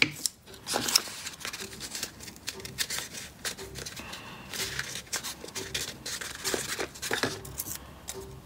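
Paper and cardboard being handled: rustles and crinkles as small paper cut-outs are pressed and glued onto a folded cardboard tube, with a couple of sharper taps near the start.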